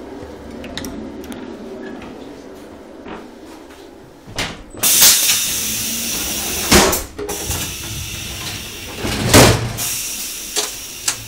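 Coach doors of a passenger railway carriage banging and clunking several times, the loudest bang about nine seconds in, after a steady low rumble. About five seconds in there is a loud hiss lasting around two seconds.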